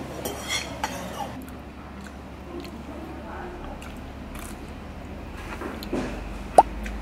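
Metal spoon and chopsticks clinking against a metal bowl of cold noodles, a few sharp clicks in the first second or so, over a steady low room hum. Near the end comes one brief, rising squeak, the loudest sound.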